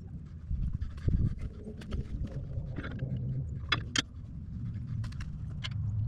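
Heavy panting breaths under a low rumble, with a few sharp metallic clinks of hand tools on the excavator's hydraulic line fittings, the two loudest just before the middle.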